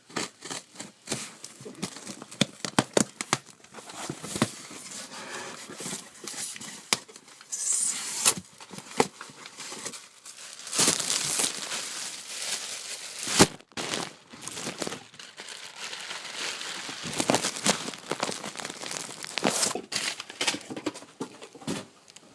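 Packaging being torn open and crinkled by hand as a parcel is unwrapped: irregular crackling, rustling and short rips throughout.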